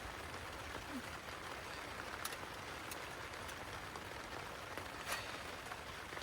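Heavy rain falling steadily on a tent, with a few sharp ticks of drops or small knocks.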